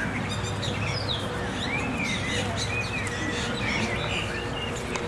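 Small birds chirping and singing in short, rising-and-falling calls, over a steady low hum.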